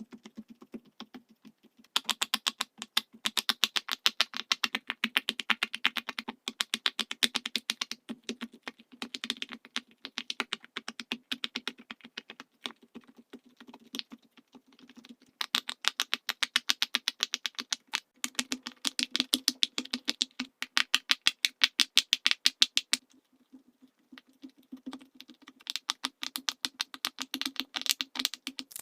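Silicone pop it fidget toy bubbles being pushed in one after another, a rapid run of soft pops several a second, with a few short pauses between rows.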